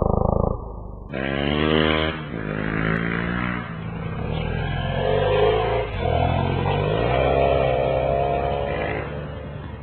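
Motorcycle engines running and revving, their pitch rising and falling several times, with an abrupt change in sound about a second in.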